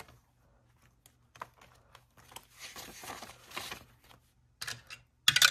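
Paper dollar bills rustling as they are handled and slipped into a binder's cash envelope, with a few light clicks. Just before the end, a plastic 12-sided die starts clattering down a dice tower.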